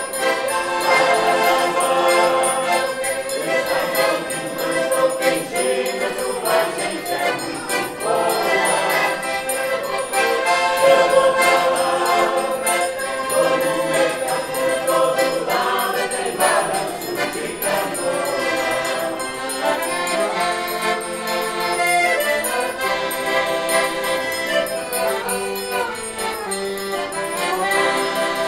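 Mixed choir of men's and women's voices singing in harmony, accompanied by an accordion.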